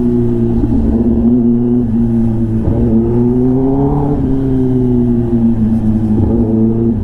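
Kawasaki ZX-10R's inline-four engine through an SC-Project aftermarket exhaust while riding: a steady engine note that breaks briefly about two and a half seconds in, climbs under throttle to around four seconds in, then eases off slowly.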